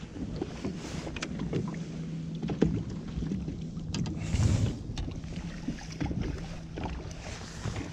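A small fishing boat's steady low hum with wind and water noise, broken by scattered clicks and knocks from handling the rod and the fish against the hull, the loudest about two and a half seconds in.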